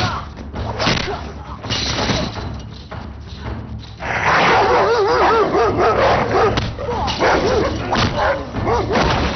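Fight blows and thuds, then from about four seconds in, a pack of dogs barking and whining loudly, with wavering high cries.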